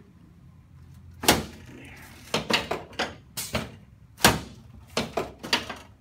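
A string of about ten sharp knocks and thumps from a hands-on chiropractic adjustment of the upper back on a padded table, the loudest a little past the middle.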